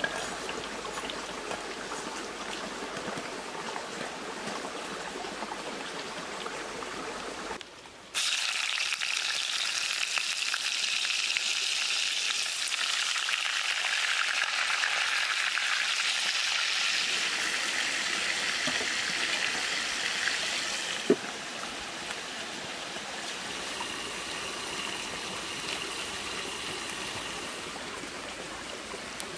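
Steady hiss of cooking in a clay pot over a wood fire. After a short break, banana-stem pieces sizzle loudly and steadily in the hot pot; about two-thirds through, a single clink, then the sizzle goes on quieter.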